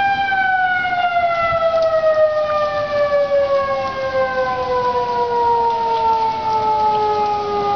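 Outdoor tornado warning siren sounding a steady tone, then winding down, its pitch falling slowly and evenly from about a second in.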